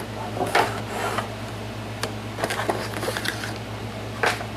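Unboxing handling noises: soft knocks and rustling from a cardboard box, a plastic case and plastic-bagged cables being moved about, with a few sharper clicks, over a steady low hum.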